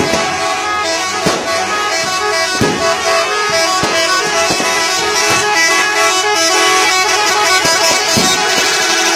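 A bus's 'telolet' musical horn, a set of air horn trumpets, playing a tune of quickly changing notes. A regular beat comes about every second and a quarter.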